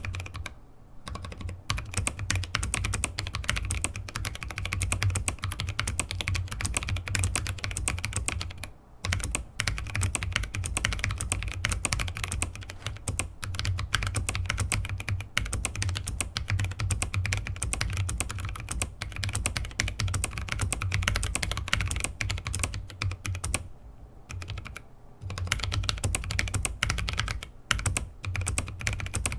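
Continuous fast typing on a YMD84 mechanical keyboard with tactile Kailh Speed Copper switches on a brass plate, with the loud click of its single Kailh Box Jade clicky spacebar between words. The typing pauses briefly near the start, about nine seconds in, and about 24 seconds in.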